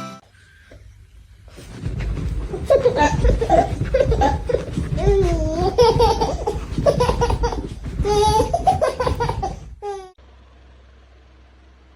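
High-pitched laughter with a wavering pitch, lasting about eight seconds over a low rumble. It ends in a quick run of short falling squeaks.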